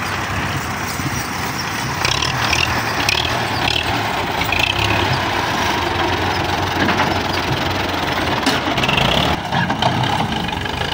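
Diesel tractor engines running steadily at work, a low continuous drone.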